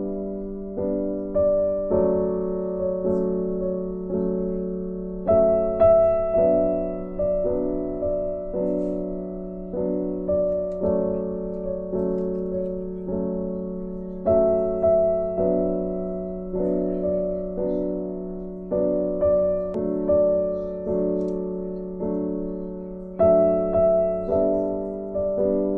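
Background music: a gentle piano melody, each note struck and dying away at an even pace, the phrase starting over about every nine seconds.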